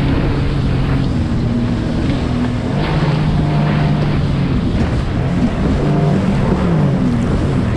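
Sea-Doo GTI 130 jet ski's 4-TEC engine running under way. Its pitch holds steady, then slides down and up again with the throttle from about five seconds in, over the rush of water and spray against the hull.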